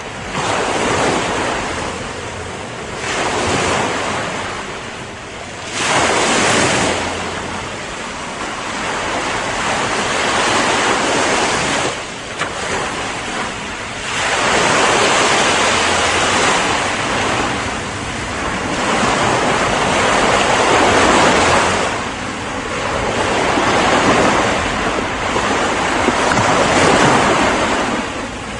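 Ocean surf: waves breaking and washing in one after another, the rushing noise swelling and falling every three to five seconds.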